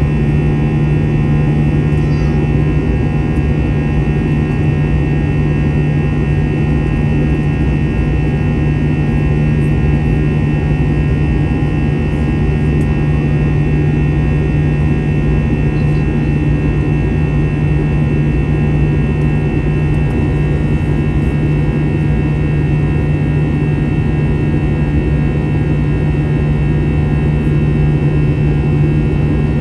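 Steady jet engine noise and rushing air heard inside the cabin of an Airbus A321-200 during its climb after takeoff, with a strong low hum and a few steady whining tones above it.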